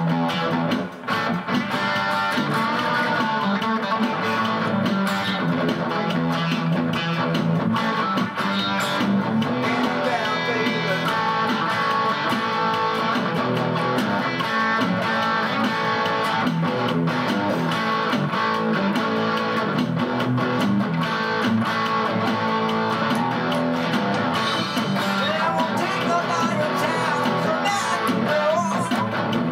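Instrumental break of a guitar-led rock song, with no singing: electric guitar lines over strummed guitar.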